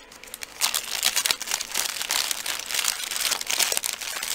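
Thin clear plastic bags crinkling as hands handle and work open small packets. An irregular crackle that starts about half a second in.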